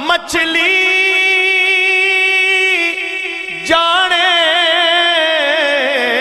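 A man's solo voice singing a Punjabi Sufi kalam, holding long wavering notes, with a fresh phrase starting just before four seconds in.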